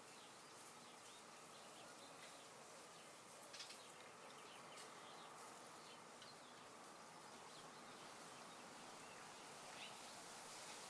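Faint outdoor backyard ambience: a soft steady hiss with a few brief faint chirps, the clearest about a third of the way in.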